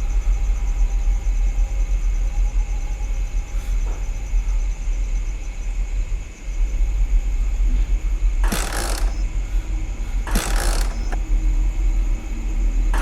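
A motorbike being tried and failing to start: a steady low rumble with short noisy bursts of cranking about two seconds apart in the second half.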